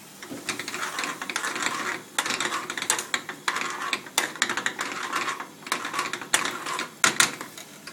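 A metal ladle scraping and clacking in a small metal pan as a thick prawn curry is stirred over a gas flame. It comes in about five rough spells with brief pauses between them, with sharp knocks of the ladle on the pan.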